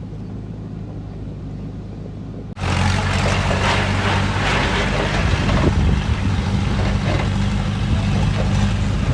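Heavy construction machine's diesel engine running steadily; about two and a half seconds in it cuts abruptly to a louder engine with a rougher, noisy clatter over it.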